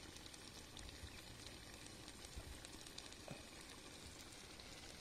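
Faint bubbling of a thick egg curry gravy simmering in an iron kadai, with scattered small pops.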